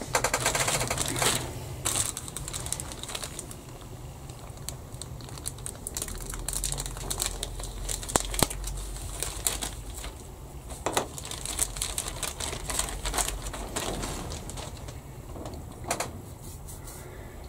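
Clear plastic bag crinkling and rustling as a bag of grey plastic model-kit sprues is opened and handled, with irregular sharp clicks and taps throughout.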